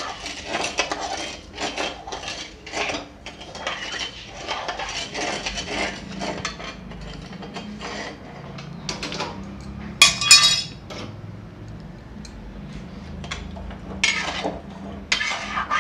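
A slotted metal ladle stirring sugar syrup in a metal kadhai, scraping and knocking against the pan in repeated irregular strokes. About ten seconds in it strikes the pan with one loud ringing clink.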